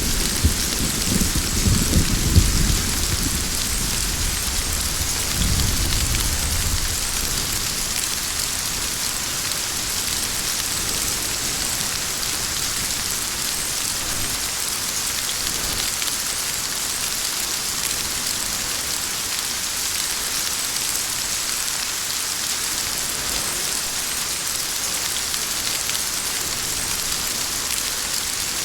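Heavy rain falling steadily, with thunder rumbling and dying away over the first few seconds and a second, shorter roll of thunder about five seconds in; after that only the even hiss of rain.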